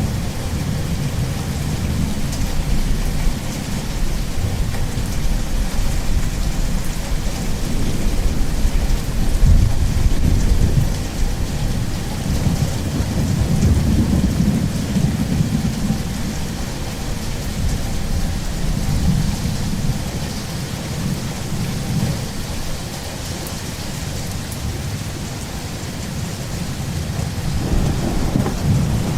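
Steady rain falling, with rolling thunder rumbling low underneath. The rumble swells and fades in waves, loudest about a third to halfway through.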